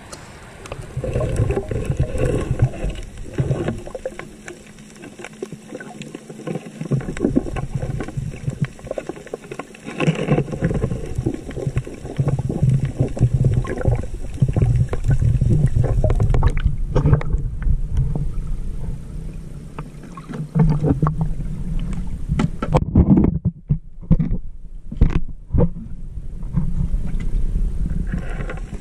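Muffled, low rumbling and gurgling of water heard through a camera held underwater, rising and falling in surges, with a run of sharp clicks and knocks near the end.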